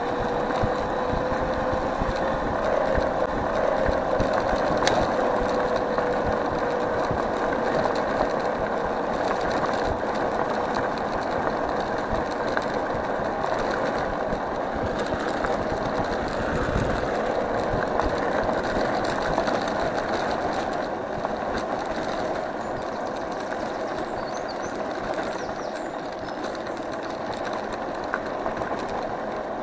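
Electric scooter being ridden: a steady motor whine whose pitch rises a little early on and then slowly falls as speed changes, over rolling tyre noise and a constant light rattle of small clicks.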